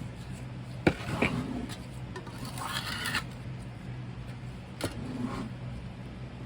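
Work on a packed casting mold: two sharp knocks about four seconds apart with a short scrape between them, over a steady low hum.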